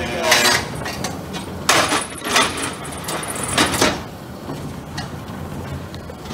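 Bauer model 333 peanut drum roaster running, its drum turning with a steady mechanical rumble. Four short scraping swishes come in the first four seconds, then it settles to a quieter, even running.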